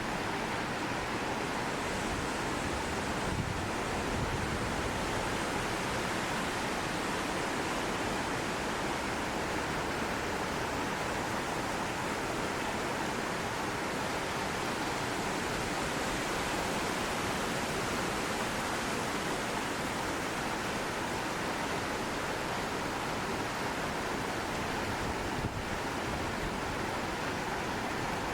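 A mountain stream flowing over a small waterfall: a steady, even rush of water, with some wind.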